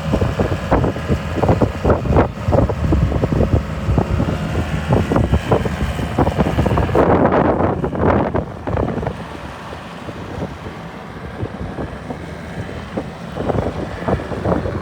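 Mustang 1650R skid steer loader running, a steady engine sound under repeated clanks and knocks. The sound eases off for a few seconds past the middle, then picks up again near the end.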